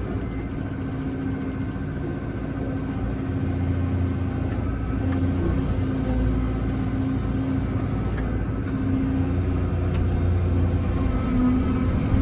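Excavator's diesel engine and hydraulics running steadily, a deep drone that gets louder about four seconds in and again near the end as the machine works.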